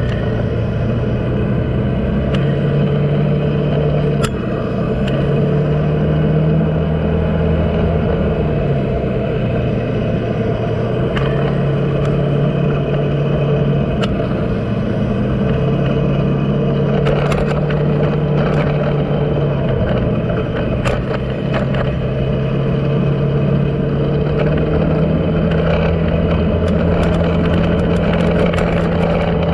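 Vehicle engine running on the move, with wind and road noise. Its pitch steps up and down several times as it speeds up and eases off, with occasional light rattles.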